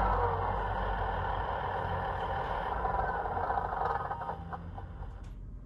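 Class 150 DMU diesel engine sound from a model train's DCC sound decoder, played through the model's small speaker. The engine drops in pitch at the start, then rumbles more and more quietly and fades out, as if the engine is shutting down.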